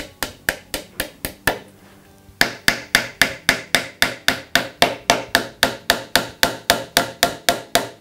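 Pin hammer driving pins into a softwood pine batten: quick taps about four a second, a short pause about a second and a half in, then a longer run of louder strikes at the same pace.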